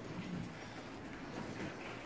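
Quiet room tone: a low, even background hum with no distinct sound event.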